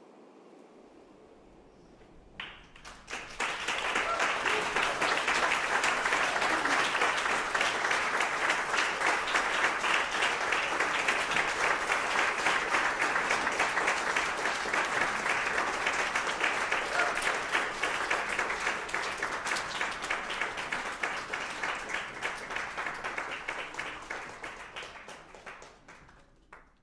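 Audience applauding. A few claps about two seconds in swell quickly into full applause, which holds steady and then thins out and fades near the end.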